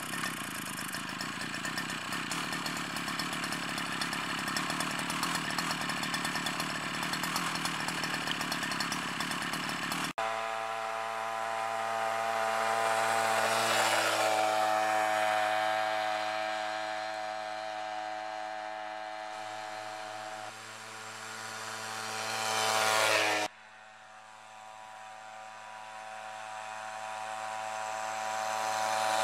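Small two-stroke string-trimmer engine powering a homemade chain-drive scooter, first running loud and close at high revs for about ten seconds. After a cut it is heard as a steady, buzzing engine note from the riding scooter, swelling and fading in loudness as it passes, with more sudden cuts between shots.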